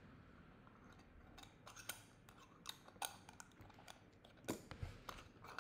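Faint, irregular clicks and small taps over quiet room tone, coming in a loose scatter from about a second and a half in.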